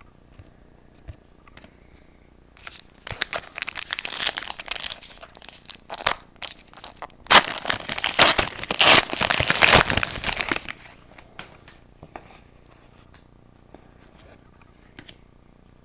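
Wrapper of a 2015-16 Upper Deck Artifacts hockey card pack being opened by hand, crinkling and tearing in two spells that start about three and seven seconds in; the second spell is louder.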